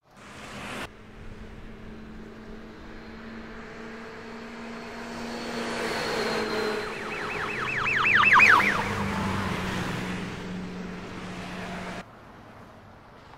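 Night street traffic sound with a steady low hum. A passing vehicle swells to a peak about eight seconds in, bringing a fast warbling electronic wail of about five sweeps a second. The sound then fades and cuts off abruptly near the end.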